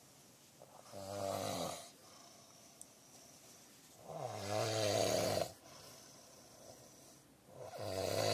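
A sleeping person snoring: three long snores about three seconds apart, each lasting a second or more, the middle one the longest.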